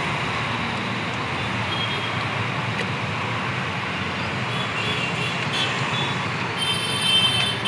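Steady roadside traffic noise from passing vehicles, with a brief shrill high-pitched tone near the end.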